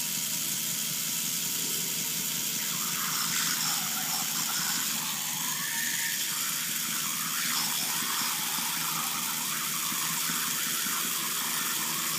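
Lego electric motor and gear train running steadily, whirring as it spins the whirlpool in the water, with wavering higher squeaks in the middle seconds.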